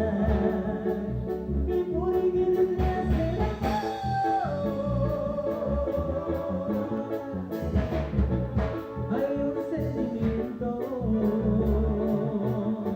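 A band playing a song during a sound check: a melody line over bass and a steady beat.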